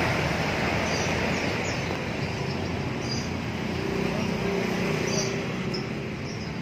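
Steady rumble of road traffic, with several short, high bird chirps scattered through it.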